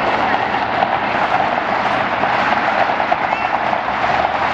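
Jet engines of a taxiing Singapore Airlines Boeing 777, a steady rushing noise at taxi power.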